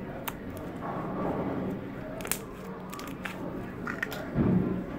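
Candy floss slime being pressed and stretched by hand, giving scattered small sticky clicks and pops over a steady background hum. A louder muffled noise comes near the end.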